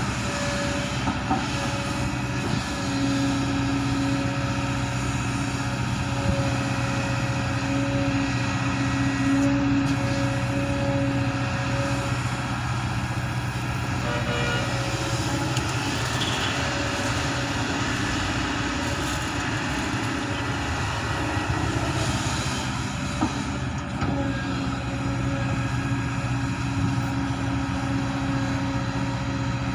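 Heavy diesel engine of construction equipment running steadily with a low hum, swelling slightly in loudness now and then as it works.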